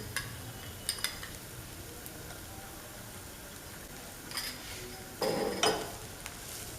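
Vegetables stir-frying in a pan on high flame, with a faint steady sizzle. A spatula stirs and knocks against the pan with a few short strokes, once about a second in and several more between about four and six seconds in.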